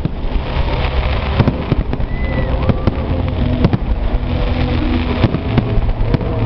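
Fireworks display: many sharp bangs in quick, irregular succession over a dense, continuous low rumble.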